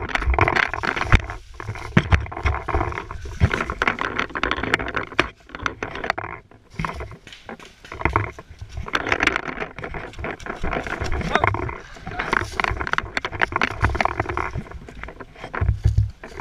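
Running footsteps through dry leaf litter and undergrowth, with rustling and short knocks as the gun-mounted camera is jolted about. The noise eases for a couple of seconds about halfway, then picks up again.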